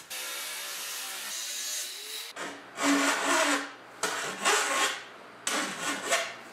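A hand file rasping along the cut edge of a steel sheet, deburring it in three long strokes after a couple of seconds of low hiss.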